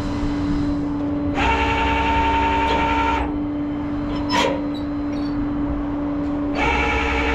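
Tow truck's hydraulic winch and pump whining under load in two bursts that switch on and off sharply, over the truck's steady engine hum, as the car in neutral is pulled up onto the truck.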